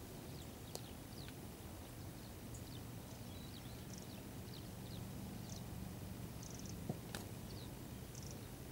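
Small birds chirping, with short high notes scattered throughout over a steady low rumble. Two sharp clicks, about a second in and about seven seconds in.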